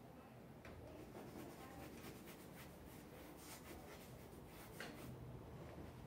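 Faint scratching of a paintbrush stroking a painting surface: a run of short, quick strokes starting about a second in and stopping near the end.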